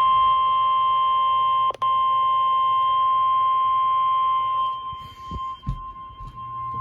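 Weather radio alert tone: one steady high beep near 1,050 Hz, the warning tone that comes before a new warning. It drops out for an instant about two seconds in and gets quieter about five seconds in, with two low thumps.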